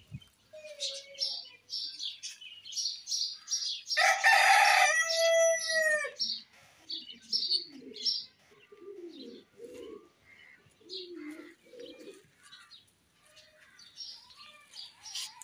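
A rooster crows once, a loud call of about two seconds starting around four seconds in. Small birds chirp high and rapidly throughout, and low clucking calls come in the middle stretch.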